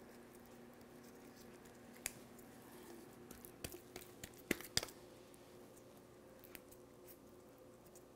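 Faint handling sounds of fresh rosemary sprigs being stripped by hand, with a few small clicks and ticks, most of them about halfway through, over a low steady hum.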